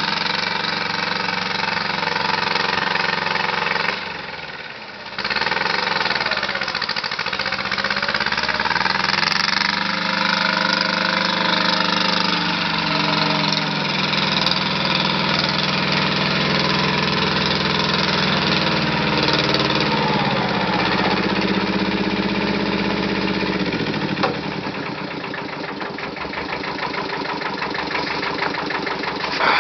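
Diesel engine of a 1973 Kubota L185DT compact tractor running steadily. It briefly drops in loudness about four seconds in, then speeds up, holds a higher speed, and slows again a few seconds before the end.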